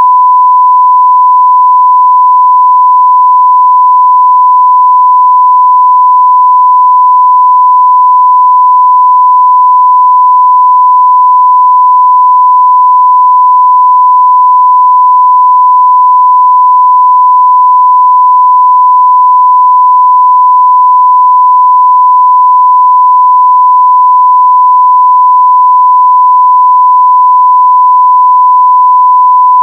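A 1 kHz sine-wave test tone at full level (0 dB), one pure steady pitch without change.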